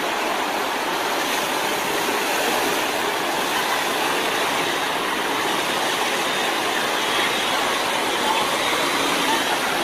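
Rushing floodwater of a swollen river, a steady noise with no break.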